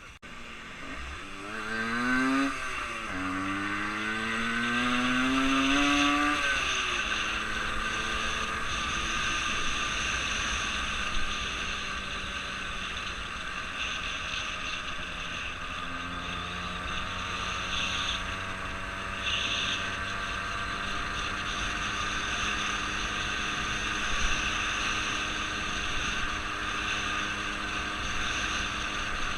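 Engine accelerating, its pitch rising twice over the first several seconds with a brief drop between, then settling into a steady cruising run.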